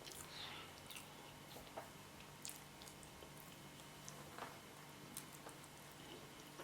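Faint chewing of soft boiled yam with spinach, with scattered small wet clicks and smacks of the mouth.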